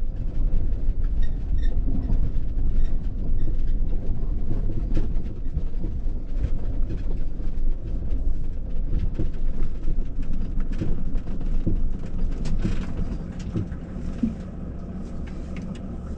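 Mercedes Sprinter 4x4 camper van driving slowly over a rocky dirt road: a steady low rumble with many clattering knocks and rattles. It gets a little quieter near the end.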